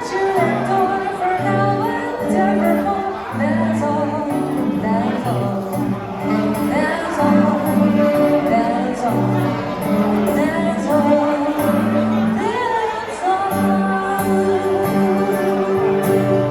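Music with singing: a sung melody over held bass notes that change in steps.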